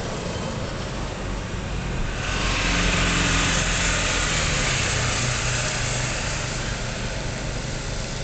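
An engine running steadily, shifting pitch a couple of times. About two seconds in, a louder rushing hiss joins it.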